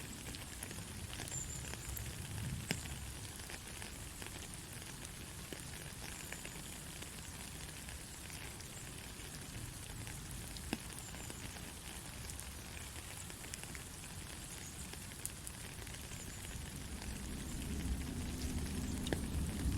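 Steady heavy rain hissing, with scattered sharp drips, and a low rumble of thunder swelling in near the end.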